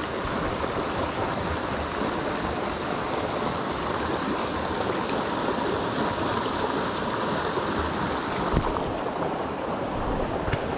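Small mountain creek's running water: a steady rushing noise, with a faint short knock about eight and a half seconds in.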